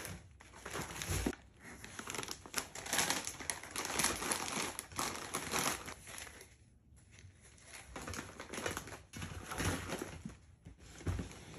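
Plastic snack bags and packaging crinkling and rustling as items are pushed and rearranged inside a plastic basket, with scattered light knocks, and a short pause about seven seconds in.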